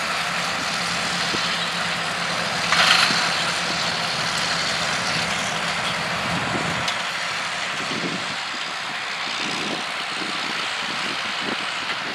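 John Deere 830 two-cylinder diesel tractor running under load as it pulls a corn planter across the field, with a brief louder burst about three seconds in.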